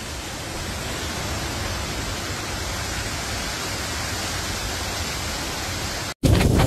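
Strong cyclone wind rushing steadily through trees. It cuts off about six seconds in, and a louder burst of wind follows.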